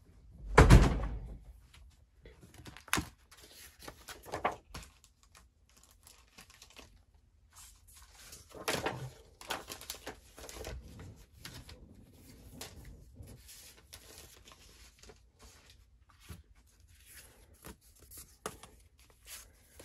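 Clear plastic packaging of a cards-and-envelopes pack being torn open, with a loud rip about a second in, then crinkling plastic and rustling paper as the cards and envelopes are pulled out and handled, with a few sharp clicks.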